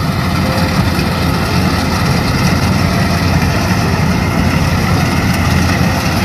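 Rice combine harvester's engine running steadily as the machine cuts through the paddy.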